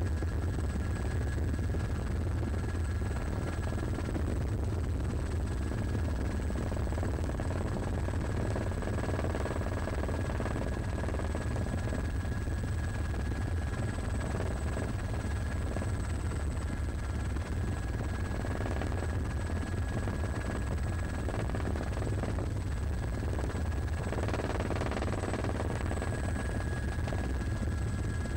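Helicopter in flight, its rotor and engine running steadily, heard from inside the cabin as a constant low-pitched noise.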